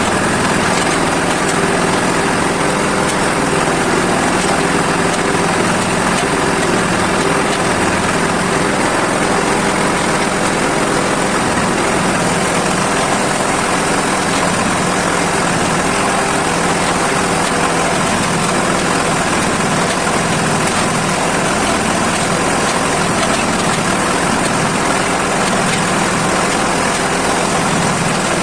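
Agrale 420 tractor engine running steadily while working a homemade backhoe, with no clear revving or change in pace.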